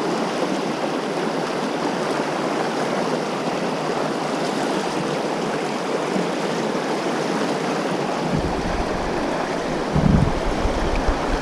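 Swift, rain-swollen river riffles rushing steadily around a wading angler. From about eight seconds in, a low rumble with a few thumps is added.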